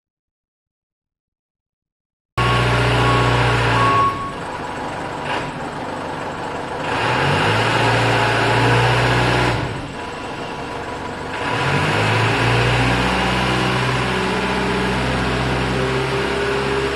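A car or truck engine running at low speed, its pitch rising and falling a few times as the vehicle is driven and repositioned. It cuts in abruptly after about two seconds of silence.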